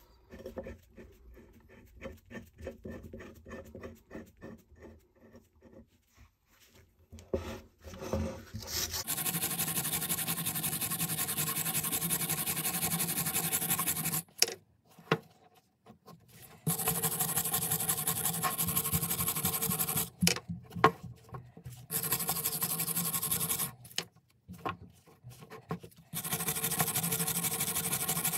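Faint scraping and handling, then a small power tool working the rusty steel wrench, running in four bursts of a few seconds each that start and stop abruptly.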